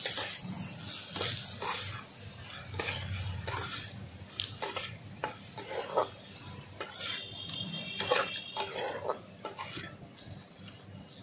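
Metal spatula scraping and knocking irregularly against a kadai as chopped elephant foot yam stems are stirred and fried in spice paste, with a sizzle of oil underneath: the stems being sautéed (kosha) in the masala.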